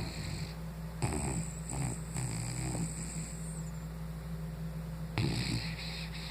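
A dog snoring in its sleep: two snoring breaths with an airy hiss, one starting about a second in and a shorter one near the end.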